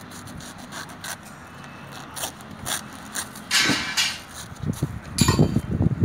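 Paper cement bags being handled in a concrete mixer's steel loading skip: scattered scrapes and knocks, a longer rustling scrape about three and a half seconds in, then a run of low thumps near the end.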